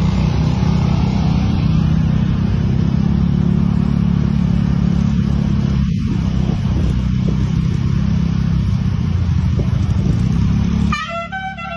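Loud, steady rumble of a running vehicle engine. About eleven seconds in it drops away and a multi-tone basuri (telolet) horn starts playing a stepped, tune-like run of notes.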